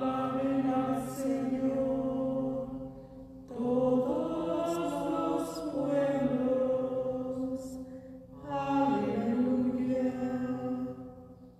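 Singing of a liturgical chant in three long, held phrases, with short breaths between them.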